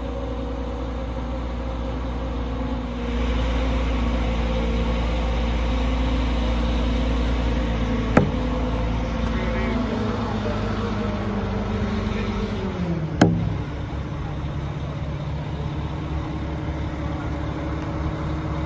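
A crane truck's engine running steadily, getting louder about three seconds in and slowing to a lower pitch about 13 seconds in, with two sharp knocks, about 8 and 13 seconds in.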